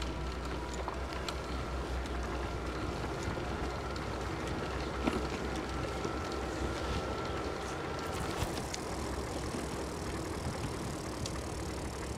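Riding a bicycle: tyres rolling along the path with wind rumbling on the microphone and small scattered clicks and rattles, plus a faint steady whine that stops about eight seconds in.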